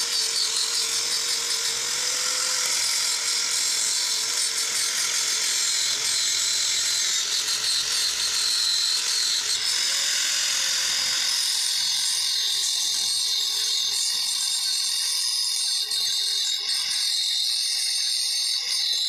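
Angle grinder grinding a steel pipe, its motor whine wavering under load. About halfway through it gives way to the steady hiss of stick arc welding on a small steel disc.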